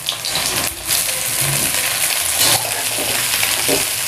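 Raw jackfruit pieces sizzling in hot mustard oil in an aluminium kadhai as they go in and are stirred, with a few short knocks of pieces and a steel spoon against the pan.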